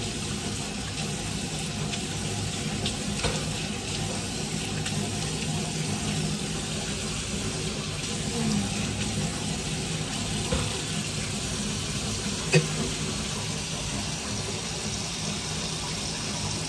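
Tap water running steadily into a sink, with one sharp click about three quarters of the way through.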